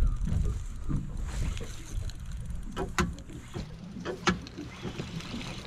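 Low rumble of wind and body movement on a chest-mounted action camera's microphone, loudest at the start, with two short sharp clicks about three and four seconds in.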